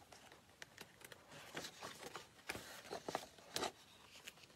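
Pages of a large picture book being turned by hand: soft paper rustles and light clicks, the loudest about three and a half seconds in.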